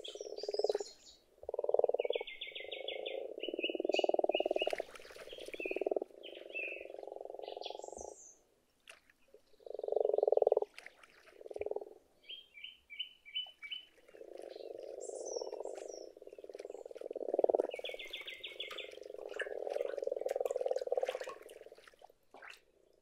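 A breeding chorus of common frogs: soft, low purring croaks in overlapping bouts of one to two seconds, the spawning-season calls of the males. Short high chirps and trills come and go above them.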